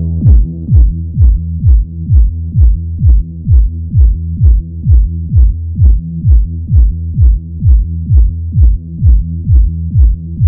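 Electronic dance loop from the reFX Nexus 2 preset 'SQ Sidechain Pumpin': a steady four-on-the-floor kick drum about twice a second, with a sustained synth that pumps between the kicks. The synth's low-pass filter cutoff is turned almost fully down, so it sounds dull and muffled.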